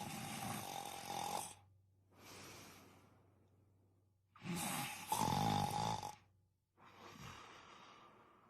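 A person snoring: two loud snores about four and a half seconds apart, each followed by a softer breath that fades away.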